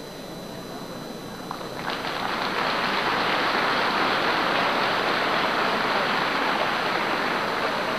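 Audience applauding in a large gym, swelling about two seconds in and holding steady.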